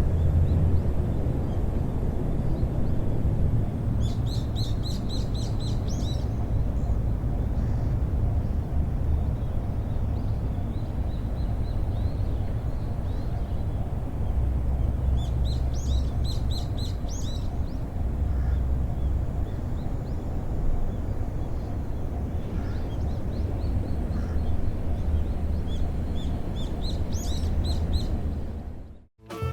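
A bird chirping in three short bursts of quick repeated notes over a steady low outdoor rumble. The sound fades out near the end.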